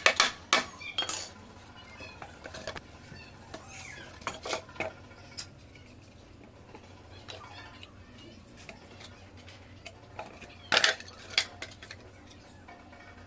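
Irregular light clinks and knocks of small hard objects, in short clusters: a few near the start, a few more about four to five seconds in, and a louder pair near the end.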